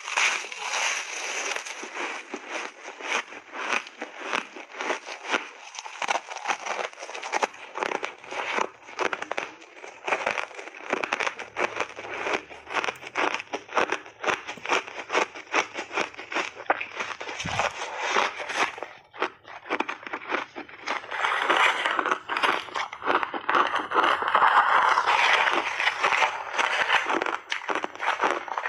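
Refrozen shaved ice, studded with gummy candy, being bitten and chewed close to the microphones: dense, rapid, crackling crunches throughout, getting louder and denser about two-thirds of the way through.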